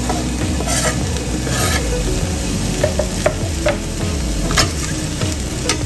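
Sliced onions sizzling as they go into a hot frying pan with melted butter. Two short scrapes near the start as the onions are pushed off a wooden cutting board, then several light clicks against the pan in the second half.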